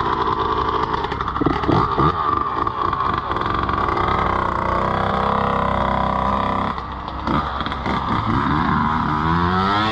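Yamaha YZ125 two-stroke dirt bike engine running, its pitch rising and falling with the throttle, with several quick rises and drops after about seven seconds.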